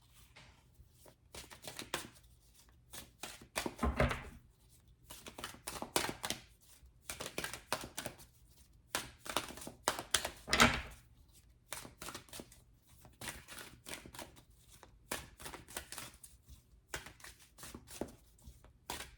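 Tarot cards being shuffled by hand: an irregular run of card clicks and rustles, with louder bursts about four and ten seconds in.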